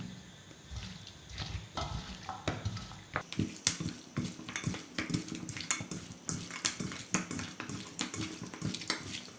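Hands mixing raw chicken pieces with spices in a stainless steel bowl: irregular wet squishes and clicks of meat and fingers against the metal, sparse at first and coming thick and fast from about three seconds in.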